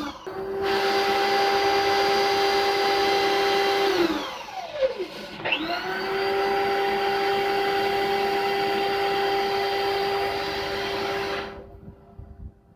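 Small Clog Dog flex-shaft drain cleaning machine running at a steady speed, spinning its 1/4-inch shaft down a clogged toilet drain. It is stopped and started again just after the start, spins down about four seconds in, spins back up a second and a half later, and is switched off near the end.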